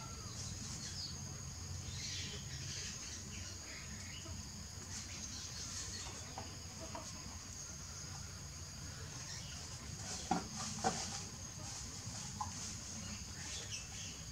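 Faint animal calls: scattered short high chirps and peeps, with a couple of slightly louder short calls about ten seconds in, over a steady high-pitched drone and a low hum.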